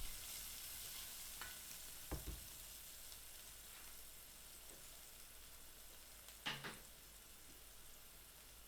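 Garlic and spring onion bulbs frying in oil in a pan, a faint steady sizzle, with a spoon knocking against the pan a few times about two seconds in and once more past the middle as they are stirred.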